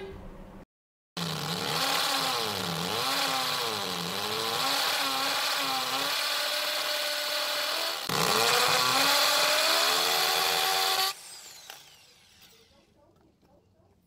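Bosch power drill boring into brick, its motor pitch rising and falling as the trigger is worked. It starts about a second in, dips and picks up again about eight seconds in, and stops about eleven seconds in.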